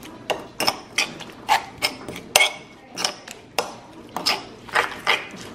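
Metal spoon stirring a wet chili sambal in a stone mortar, scraping and clinking against the stone in quick separate strokes, two or three a second.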